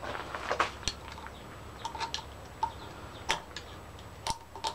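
Irregular light metallic clicks and taps as a spring and centring rod are worked into place in a hydroboost brake booster by hand, some with a brief ring.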